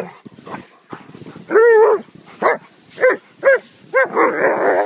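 Sled dogs barking: one longer bark about a second and a half in, then four short barks about half a second apart. Near the end comes a loud burst of rough noise lasting most of a second.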